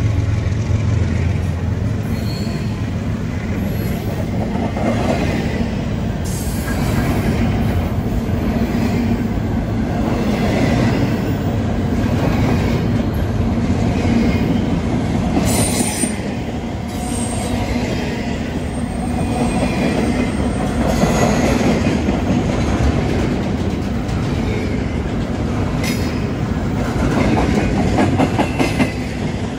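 Intermodal freight cars rolling past close by, steel wheels clacking over the rail joints in a steady, loud rumble, with occasional brief wheel squeals. A locomotive's deep drone fades out in the first second.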